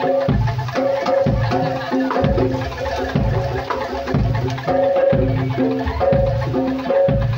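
Loud, continuous Indonesian percussion ensemble music in a repeating pattern: deep drum strokes under ringing mallet-struck tuned percussion, typical of gamelan accompaniment.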